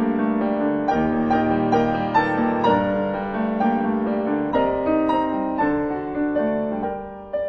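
Solo piano playing slow, sustained chords under a melody, growing softer near the end.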